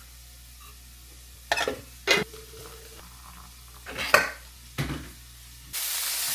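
Food frying in a pan, with a few sharp knocks and clinks of a utensil against the pan; a loud sizzle cuts in near the end.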